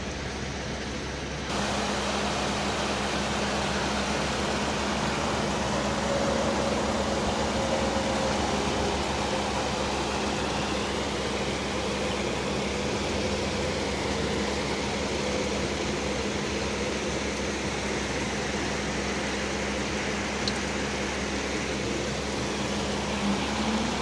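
Creek water rushing over rocks in shallow rapids: a steady rushing noise that starts about a second and a half in, with a faint low steady hum beneath it.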